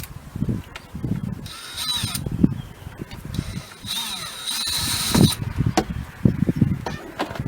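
Power drill-driver turning screws in a storm door's top edging: a short run about a second and a half in, then a longer run of about two seconds, the motor whine bending as it spins up. Knocks and handling sounds fill the gaps between runs.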